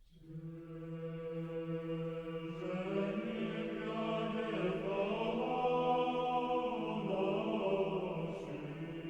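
Choir chanting: a steady held low note under slowly moving upper voices, fading in at the start.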